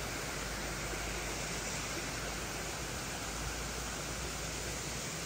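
Steady, even rushing noise with nothing else standing out.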